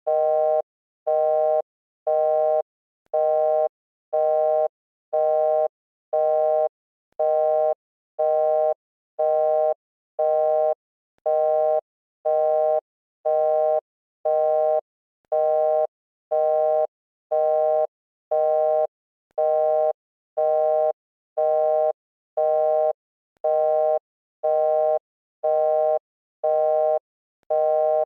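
Telephone busy-signal tone: a steady two-note electronic beep pulsing on and off evenly, about half a second on and half a second off, repeating without change.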